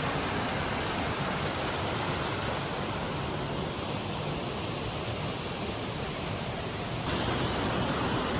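Steady rushing of a cascading waterfall, loud up close. About seven seconds in it jumps abruptly to a slightly louder, brighter rush.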